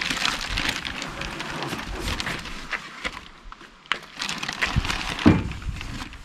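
Clear plastic packaging bag rustling and crinkling as a boxed inverter is pulled out of it and handled, with a thump about five seconds in as the unit is set down upright on the truck's wooden bed.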